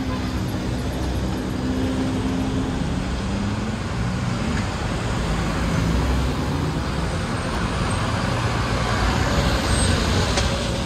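Street traffic: a light box truck and cars driving by, a steady mix of engine and tyre noise, with a car passing close partway through.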